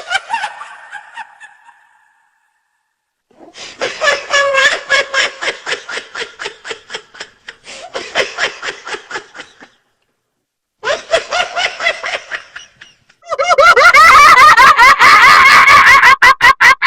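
Witch laugh sound effect: a rapid, pulsing cackling laugh in several bouts separated by short pauses. The last bout, starting near the end, is the loudest.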